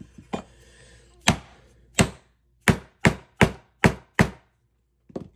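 Mallet strikes on an airsoft gearbox shell, knocking out its bushings: about nine sharp knocks, coming faster in the second half at roughly three a second.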